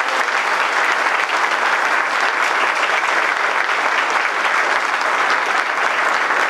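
Steady applause from a crowd, many hands clapping.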